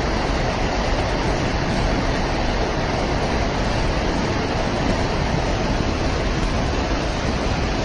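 Steady, loud rushing rumble: an even noise with no tone or rhythm, heaviest in the low end.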